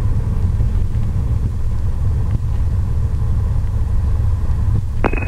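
Piper Dakota's six-cylinder Lycoming engine and propeller running at low power, heard as a steady low rumble inside the cabin during the landing roll on the runway. Near the end a radio transmission clicks on over the headset.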